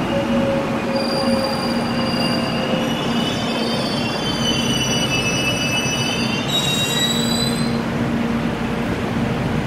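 Korail electric commuter train braking to a stop at the platform. A low whine falls in pitch over the first few seconds. Then high, wavering squeals from the wheels and brakes run from about three seconds in until near the end, over a steady rolling rumble.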